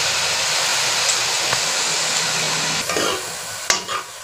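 Rice and dal sizzling in hot oil in a metal kadai, a steady hiss that eases about three seconds in, when a ladle starts stirring the grains with scrapes and a sharp clink against the pan.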